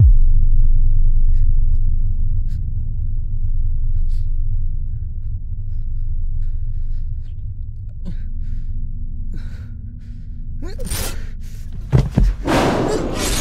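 Deep low rumble, a film sound-design drone, starts suddenly and holds, slowly fading. Near the end come two sharp hits and a loud rush of noise.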